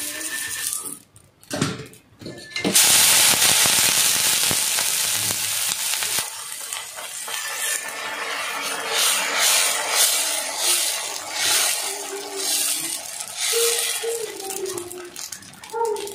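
A hot dosa tawa sizzles as it is rubbed with a cut onion. Dosa batter is then poured on and spread round with a ladle, in repeated scraping strokes through the second half. The sizzling is loudest from about three seconds in.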